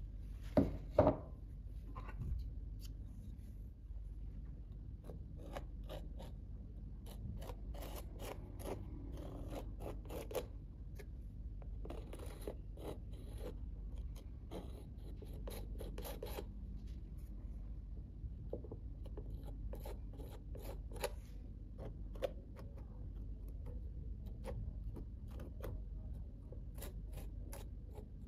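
Metal palette knife scraping and spreading thick texture paste over a canvas, in a run of short scratchy strokes. Two sharp knocks about a second in.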